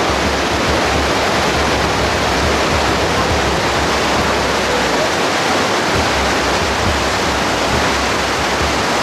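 Steady, loud rush of the cave's underground river flowing out past the walkway at the cave mouth.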